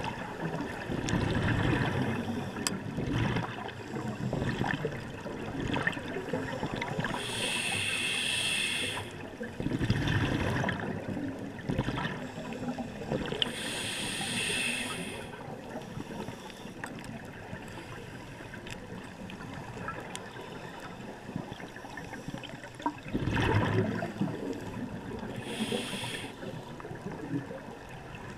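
Scuba regulator breathing heard underwater: every several seconds a short hissing inhale, and in between the low bubbling of exhaled air, over a steady underwater hiss.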